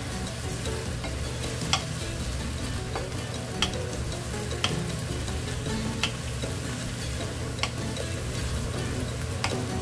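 Dried pumpkin strips (hobak-ogari) sizzling as they are stir-fried in a nonstick frying pan and turned with a wooden spatula. Sharp clicks come every second or two as the spatula knocks against the pan.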